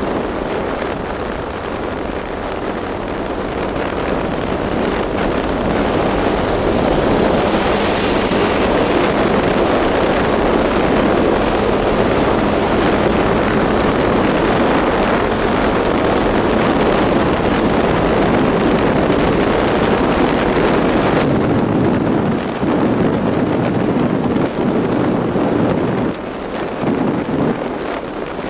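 Loud, steady wind rush on the microphone over the running engine and road noise of a moving vehicle on the road. The high hiss eases about three quarters of the way through.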